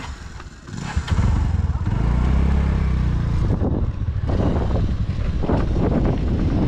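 Small 125 cc motorbike engine opened up from a standstill about a second in, then running steadily as the bike pulls away and picks up speed.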